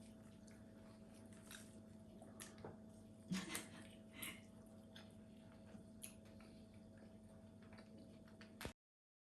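Near silence: a low steady hum with a few faint scattered clicks and taps, the loudest about three and a half seconds in, then the sound cuts off completely near the end.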